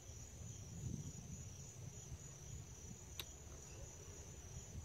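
Insects trilling in one steady, unbroken high-pitched drone, with a low rumble underneath and a single faint click a little past the middle.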